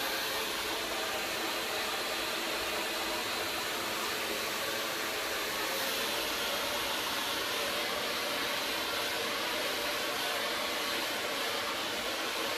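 CHI Air hair dryer with a pik comb attachment running steadily at a constant level, blowing hot air through hair.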